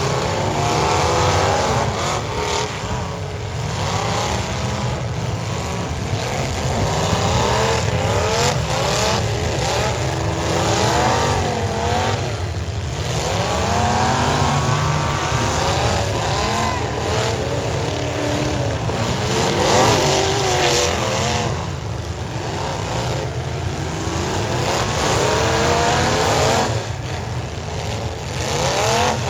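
Several demolition derby cars' engines revving hard, their pitch rising and falling over and over, with a few sharp knocks.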